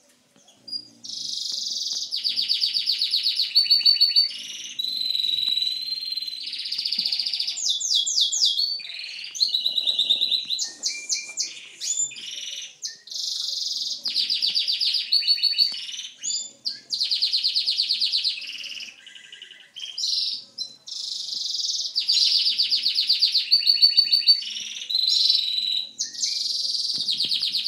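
Gloster canary singing a long run of rolling trills and rapid repeated notes, with short pauses between phrases.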